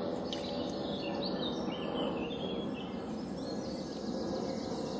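Woodland birds chirping, busiest in the first half, over a steady rustling as a 1.5 litre Sigg water bottle is worked down into its holder.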